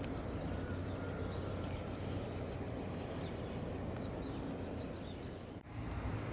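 Steady low background rumble with a few faint, short, high chirps between about three and four and a half seconds in. The sound drops out briefly near the end.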